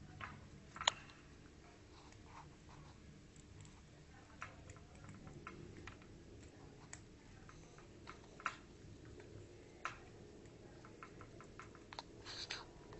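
Faint, scattered sharp clicks and cracks of a prairie dog and a squirrel chewing and cracking seeds, the loudest a little under a second in, over a faint low hum.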